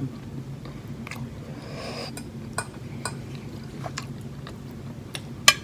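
Eating sounds: scattered small clicks of cutlery against a plate and mouth noises as spaghetti is eaten, with one sharper click near the end, over a low steady hum.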